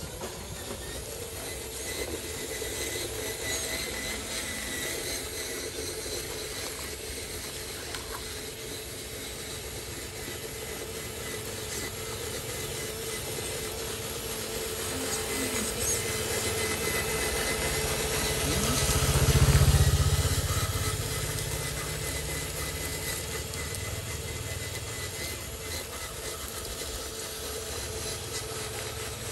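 Radio-controlled model dump truck driving over dirt and mud, its motor and gears whining steadily. About two-thirds of the way through, a louder low rumble swells and fades.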